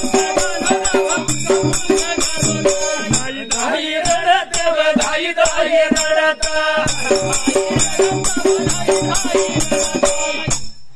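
Dhangari ovi music: men singing together over a steel-shelled dhol drum and jingling hand cymbals beating a fast, even rhythm of about three strokes a second, with a long held sung note midway. The music stops abruptly just before the end.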